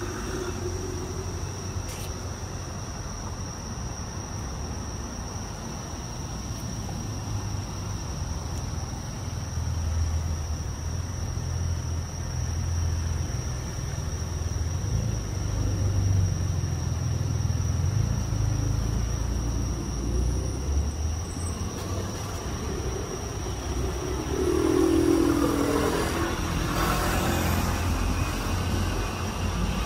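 Low rumble of passing traffic that swells and fades, with a thin steady high-pitched tone throughout. A louder pass comes near the end.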